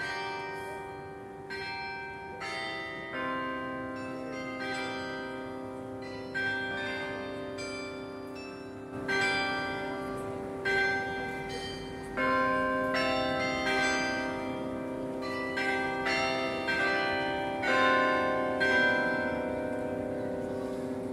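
Tower carillon of 51 bells playing a tune: bells struck one after another and in chords, their tones ringing on and overlapping. The last notes fade away near the end.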